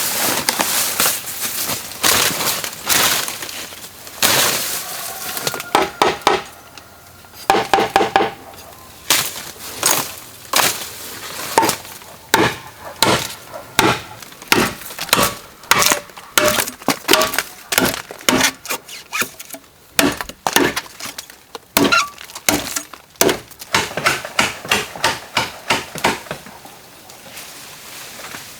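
Bamboo struck again and again with a hand tool: a long run of sharp, irregular knocks, some ringing briefly with a hollow pitched tone.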